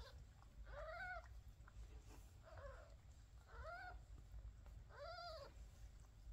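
Newborn kitten mewing faintly: four short, high cries, each rising and falling in pitch, spaced a second or so apart.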